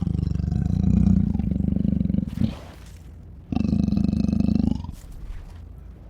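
Monster-cat creature sound effect: two long, low, rough roars, the first about two seconds long, the second shorter, with a brief breathy hiss between them.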